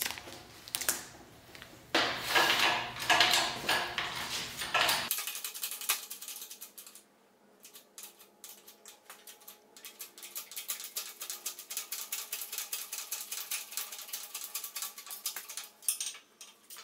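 Handling noise and rustle as a sand-filled length of electrical conduit is capped. After a cut comes a long run of faint rhythmic clicks: the 12-ton hydraulic pipe bender's bottle jack being hand-pumped as it forces the conduit into a bend.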